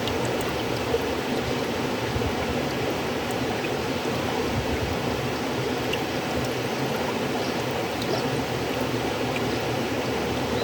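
River water flowing steadily, a continuous even rush with faint small splashes and trickles.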